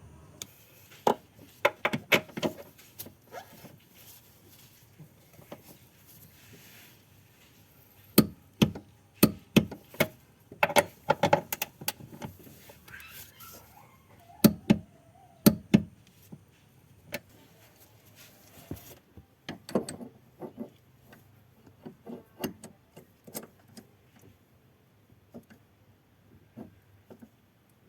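Clinks and knocks of metal tools and parts being handled, coming in clusters of sharp strikes with pauses between.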